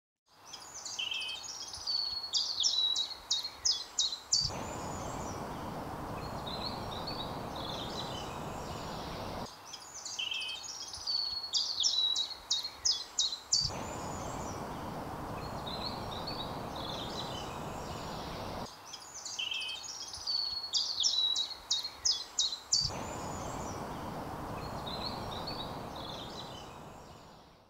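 A songbird sings a phrase three times, each ending in a run of quick, sharp notes. Between the phrases a steady rushing noise switches on and off with fainter bird calls over it. This is the microphone plugged straight into the camera, against the quieter stretches recorded through a field recorder.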